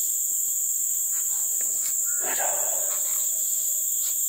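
Steady high-pitched drone of insects, with a short call about two seconds in.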